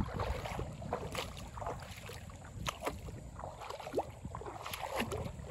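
Water splashing and lapping irregularly against a small boat moving along a river.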